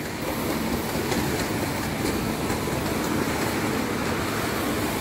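Shopping trolley wheels rolling steadily across a tiled supermarket floor.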